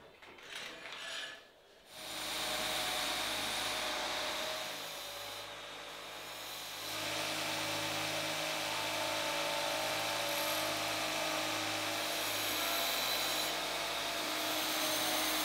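Belt grinder running a 60-grit belt over a 6-inch contact wheel, grinding the bevels into a hardened steel dagger blade. It starts about two seconds in after a few faint handling sounds, steady throughout, with a brief dip in the grinding noise near the middle.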